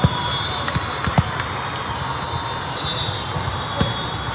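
An indoor volleyball game in a gym: a few sharp thumps of the ball, faint long high squeaks, and a steady murmur from the hall.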